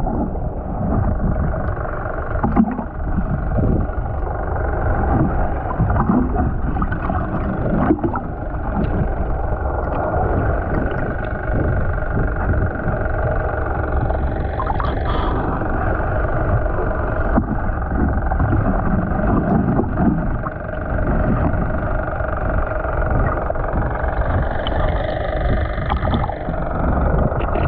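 Fishing boat's engine and propeller heard underwater: a steady drone with a heavy low rumble.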